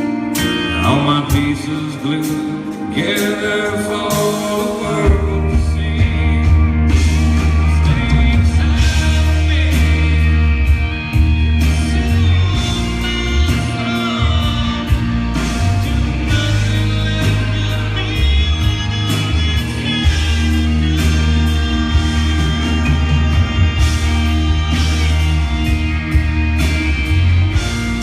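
Live rock band playing a song, with guitar and drums; a heavy bass comes in about five seconds in.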